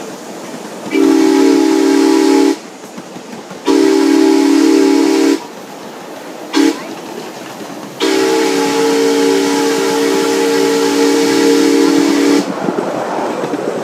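Live steam locomotive's whistle sounding a chord of several tones in the grade-crossing pattern: two long blasts, a short toot, then a long blast held about four seconds. Between blasts the train's running noise and steam hiss go on.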